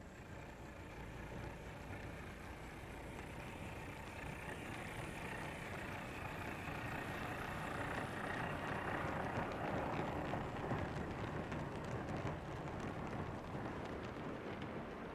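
7mm-scale model mixed goods train, hauled by an LMS Class 8F locomotive, rolling along the track: a steady rumble with fine clicking of wheels over the rail, growing louder toward the middle.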